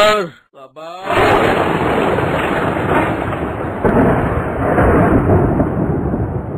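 A long, loud thunder-like rumble used as a cartoon sound effect, starting about a second in, swelling a few times and beginning to fade near the end. It is preceded by a brief wavering tone at the very start.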